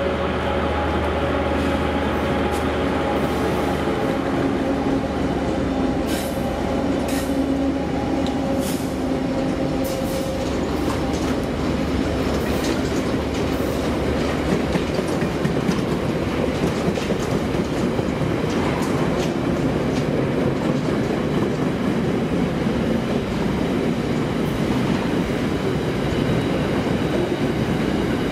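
Freight train passing at speed, led by three diesel-electric locomotives whose engine drone fades over the first several seconds. A long string of container wagons follows with a steady wheel-on-rail rumble, clickety-clack and occasional sharp clicks.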